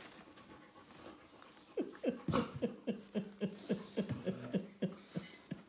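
Small puppy making a rapid run of short whimpers, each falling in pitch, about four a second, starting about two seconds in and stopping shortly before the end.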